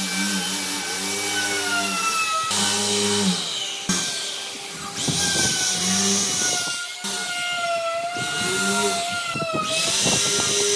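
Electric power tool working wood: a motor whine that sags and recovers in pitch as the tool is loaded, with stretches of loud high hiss from the cut or abrasion.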